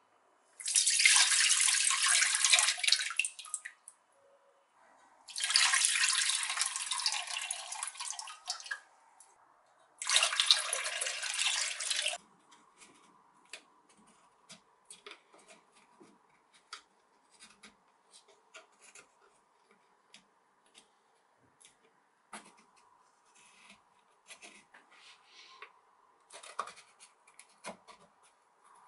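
Coconut water pouring from three opened young Thai coconuts into a pot, three separate pours of two to three seconds each. Then a small knife scraping and clicking against the inside of a coconut shell as the meat is dug out.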